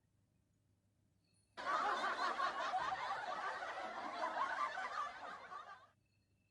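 Laughter lasting about four seconds, starting about a second and a half in and cutting off abruptly.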